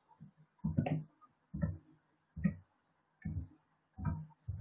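Computer keyboard keys pressed one at a time during slow hunt-and-peck typing: a dull tap about every three-quarters of a second, six or seven in all.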